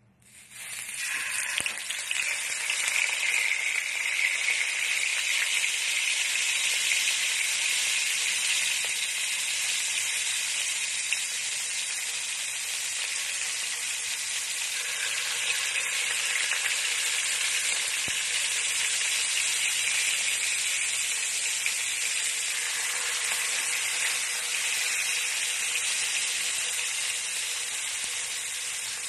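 Galunggong (round scad) frying in hot oil: a steady sizzle that starts suddenly and is at full strength within about a second.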